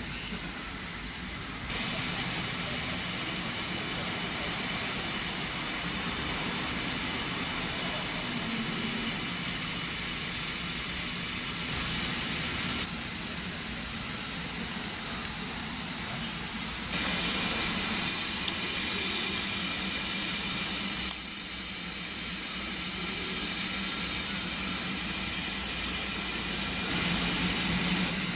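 BR Standard Class 4MT 2-6-0 steam locomotive No. 76084 standing in steam, giving a steady hiss of escaping steam that rises and falls in steps, with a faint low hum underneath.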